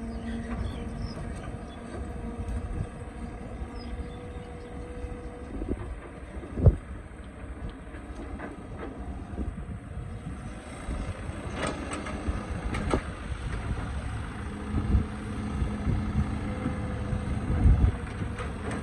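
Excavator's diesel engine running under load with a steady hum, broken by a sharp loud knock about seven seconds in and by a run of clanks and thuds later on, as the bucket strikes rock.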